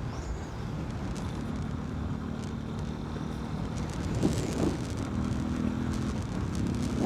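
Yamaha Fazer 250's single-cylinder engine running with its air filter removed: a steady low engine note that gets a little louder about four seconds in.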